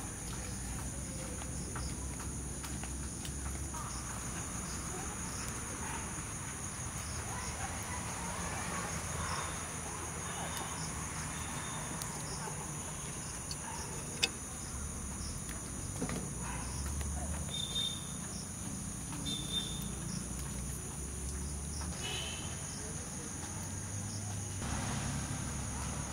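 Steady high-pitched insect chorus trilling without a break, with a sharp click about halfway through and a few short chirps in the second half.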